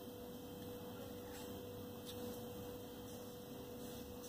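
Faint, steady electrical hum, a single constant tone like mains hum, under quiet room tone.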